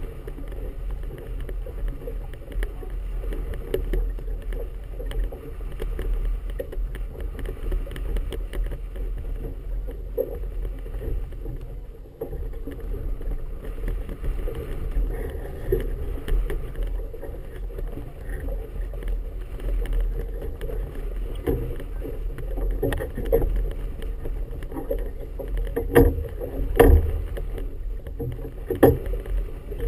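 Choppy harbor water slapping and sloshing against a small boat's hull, over a steady low rumble of wind. A few sharper, louder slaps come near the end.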